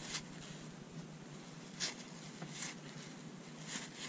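Cardboard baseball cards (1981 Fleer) sliding against each other as a stack is thumbed through by hand: about four faint, brief swishes.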